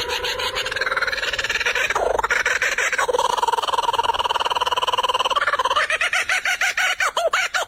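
A bird's long, harsh, rasping calls, each held for a few seconds with a fast pulsing quality, then a quick run of short repeated notes at about three a second near the end.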